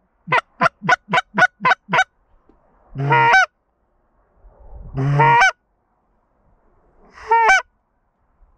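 Hand-blown Canada goose call sounding a fast run of clucks, about three a second, for the first two seconds. Three longer honks follow, about two seconds apart. The calls are the hunter working incoming geese to draw them into the decoys.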